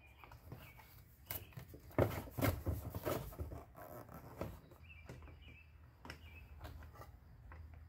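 Irregular metallic clicks and knocks of a wrench working the outside mirror's mounting nuts inside the door frame, busiest from about one and a half to four and a half seconds in. Faint bird chirps in the background.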